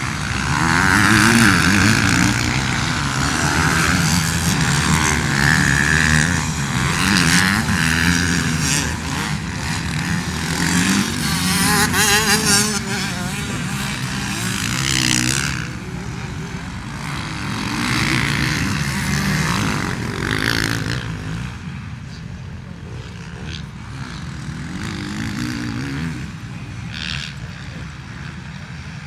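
Motocross motorcycle engines out on the track, revving up and falling back over and over as the bikes accelerate and shift. They are louder through the first half and quieter after about sixteen seconds.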